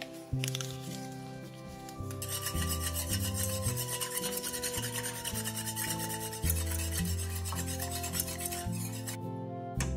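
Wire whisk scraping rapidly against the inside of a copper pan, stirring agar into dashi so that it dissolves. The scraping starts about two seconds in and stops just before the end.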